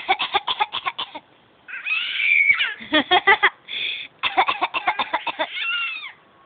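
A 5-month-old baby making quick breathy huffs in three runs of about eight a second, with high gliding squeals between them.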